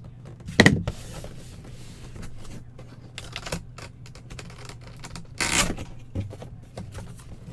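Packaging being handled and torn open, with rustling, scraping and small clicks, and a sharp thump about half a second in.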